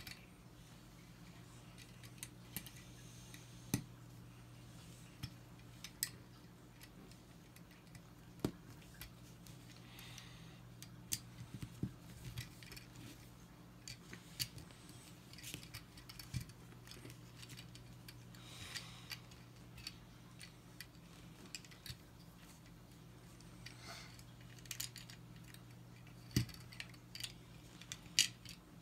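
Plastic LEGO bricks clicking irregularly as they are pressed together, pulled apart and set down on a hard tabletop, over a low steady hum.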